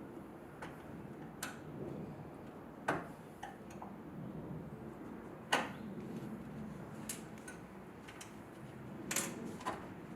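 Scattered sharp clicks and light knocks, irregularly spaced, over a low steady background noise. The strongest come about three seconds and five and a half seconds in.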